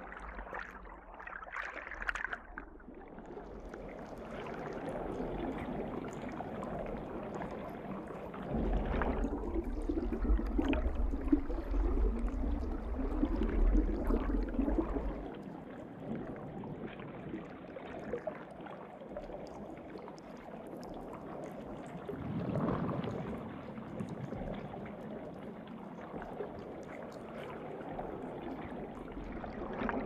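Underwater water ambience: a steady rush of moving water that swells and fades, with a deeper rumble from about nine to fifteen seconds in and another swell a little past twenty seconds.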